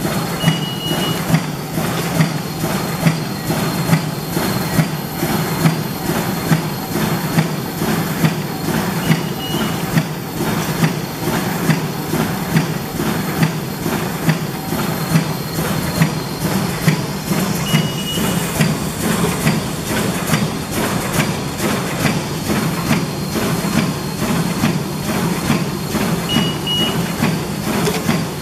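High-speed plastic shopping bag making machine running, a steady mechanical hum with a sharp clack about once a second. A short high beep sounds four times, about nine seconds apart.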